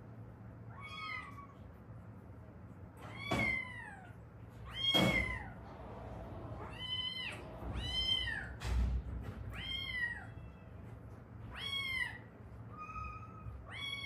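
Domestic cat meowing repeatedly, about nine meows each rising then falling in pitch, roughly one every second and a half.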